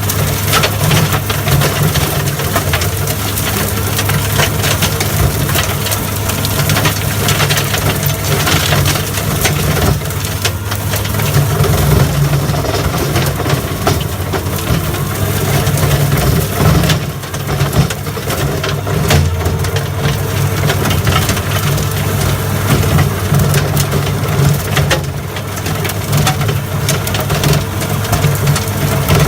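New Holland L170 skid steer's diesel engine running steadily under load while its 5 ft Loflin brush cutter shreds thick brush, with frequent cracks of breaking wood over the engine.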